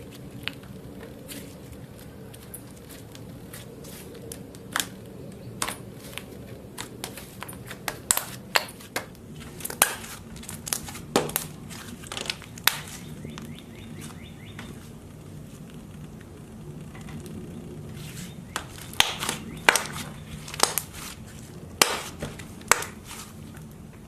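Slime being squeezed and pressed by hand, giving irregular sharp clicks and pops, which come thickest in two clusters: through the middle and again near the end.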